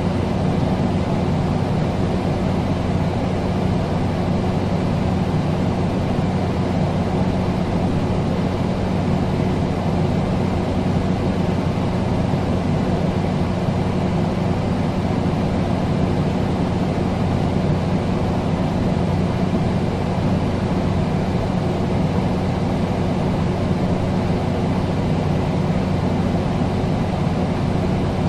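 Air conditioner running steadily: an even rushing of air with a constant low hum in it.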